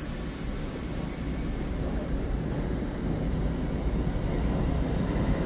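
EMU3000 electric multiple unit at the platform, starting to pull away: a sudden even hiss sets in, and the train's rumble grows steadily louder.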